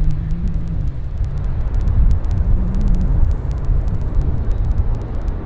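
Low, steady rumble of a distant jet airliner's engines as it rolls along the runway.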